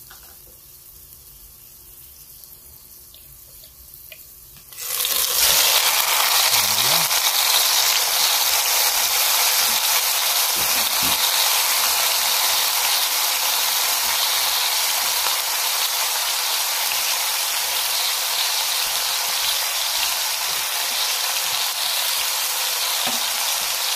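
A whole chicken set into hot oil in an enamelled cast-iron Dutch oven: about five seconds in, a loud sizzle starts suddenly and keeps going steadily, easing a little toward the end.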